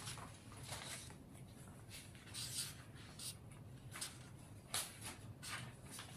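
Black marker pen drawing on paper: a series of short, faint scratchy strokes, some quick and some longer, at an irregular pace.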